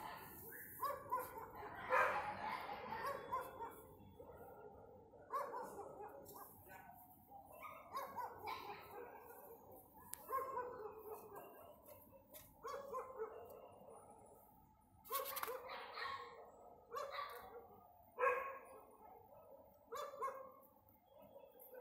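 Dogs barking repeatedly, a bark or a short cluster of barks every one to two seconds, with a slight echo.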